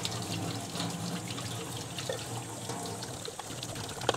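Tap water running and splashing over a metal HRV intake vent hood into a stainless steel sink as the hood is scrubbed, with a few light knocks and one sharper click near the end.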